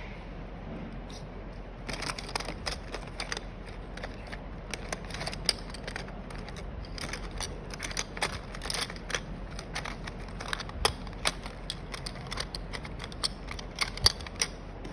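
Packaging and small parts being handled: irregular sharp clicks and short crinkling rustles, starting about two seconds in and going on, with a few louder snaps.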